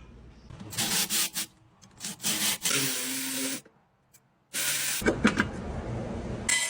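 Brake rotor being resurfaced on a brake lathe: a scraping, rubbing noise in several short, abruptly cut stretches, with a gap of about a second in the middle.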